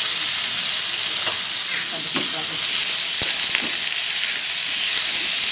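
Raw squid and shrimp, just added to hot oil with garlic and chili, sizzling steadily in a nonstick wok over a high flame. The seafood is stirred with a plastic spatula, giving a few light scrapes and taps against the pan.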